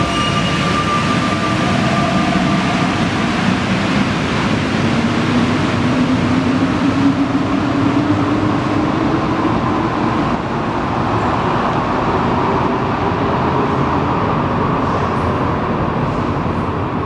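Rubber-tyred Santiago Metro Line 5 train pulling out of the station. Its traction motor whine rises slowly in pitch as it accelerates, over a steady rumble of running noise.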